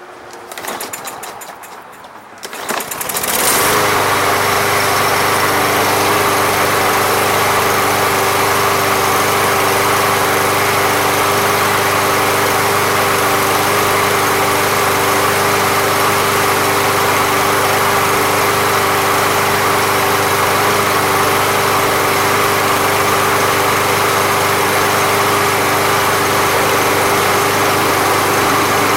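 Briggs & Stratton lawn mower engine being pull-started: a couple of seconds of irregular cranking, then it catches about three seconds in and runs steadily at a constant speed. It is running after a Seafoam treatment, which has freed up the gummed carburetor without a cleaning.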